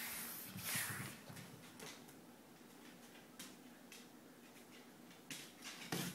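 Faint rustling in the first second, then a few light clicks and scuffs as a puppy shifts about on a tile floor.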